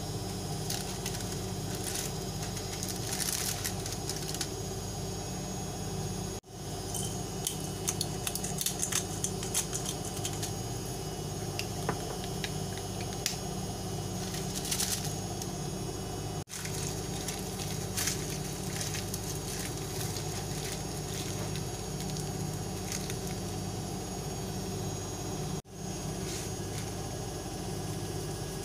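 Parchment paper rustling and crinkling in short spells as food is wrapped in it, over a steady low hum. The sound cuts out briefly three times.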